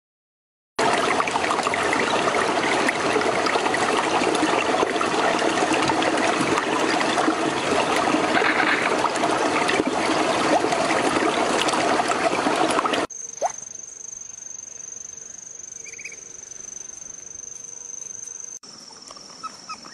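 Water running and trickling steadily, with small splashes, cutting off suddenly about thirteen seconds in. After that, a much quieter background with a faint, steady high-pitched tone.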